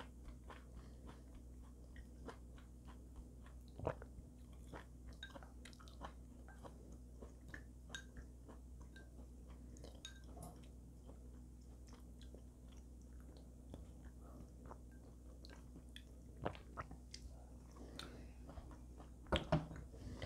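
Quiet close-up eating sounds: chewing with small wet mouth clicks as soup greens are eaten with chopsticks. Scattered light clicks run through it, with a louder knock about four seconds in. Near the end come a couple of louder knocks as the ceramic bowl is set down on the stainless steel tray.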